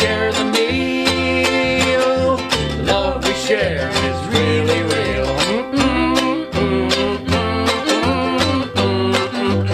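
Ukulele strummed in a steady rhythm over a plucked upright double bass, playing an instrumental passage of a folk/Americana song.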